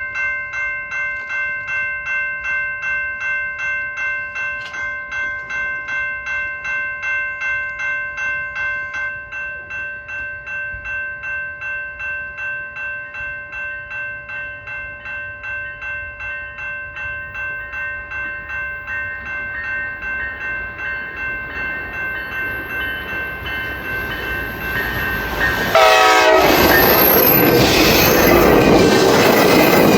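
A level-crossing bell rings steadily, about two strokes a second. About 26 seconds in, a GO Transit train arrives and passes close, loud. A horn, likely the K5LA, sounds briefly as it arrives.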